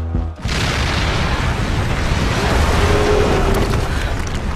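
A massive explosion: the captured Borgward IV demolition charge carrier's explosive charge going off as a film sound effect. It hits suddenly about half a second in, cutting off a pulsing music cue, and its blast noise then carries on as a long dense wash to the end.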